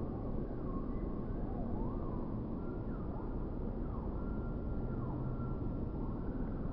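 Steady low outdoor rumble, like wind or distant traffic, with faint rising and falling high tones over it, one held for a couple of seconds near the end.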